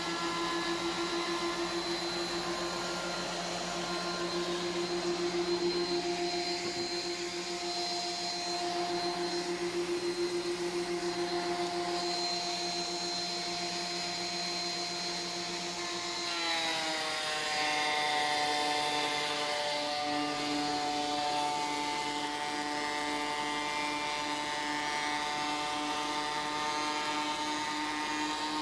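Benchtop thickness planer running with its dust extractor, a steady motor whine while a Sapele board is fed through. About two-thirds of the way through, the pitch drops slightly and stays lower.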